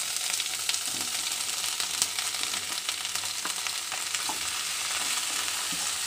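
Onion and capsicum sizzling in a kadai with a little coconut oil, with scattered crackles and light spatula clicks as sliced mushrooms are stirred in.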